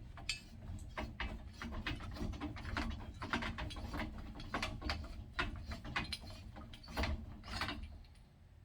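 Irregular metal clicking and ratcheting, a few clicks a second, from tools and parts being worked on a steel bicycle during disassembly.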